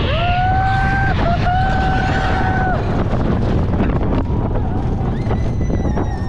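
Slinky Dog Dash roller coaster train running at speed, with a steady low rush of track noise and wind on the microphone. A rider lets out two long, held whoops in the first three seconds.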